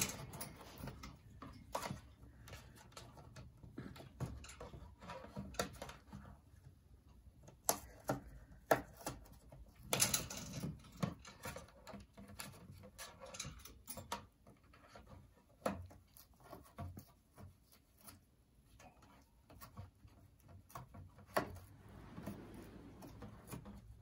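Congo African grey parrot chewing and tearing the cardboard of a tissue box with its beak: faint, irregular crunches and crackling clicks, with a few louder rips about eight and ten seconds in.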